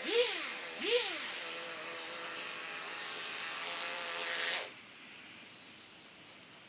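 A small engine running steadily, revved twice in quick succession near the start, each rev rising and falling in pitch, then cut off about four and a half seconds in.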